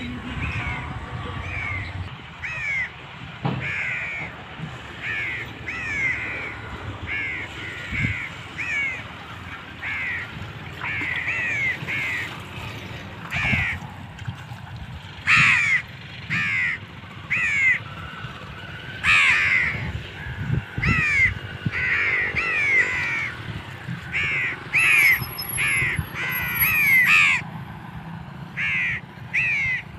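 Crows cawing again and again, many short falling calls, often overlapping one another.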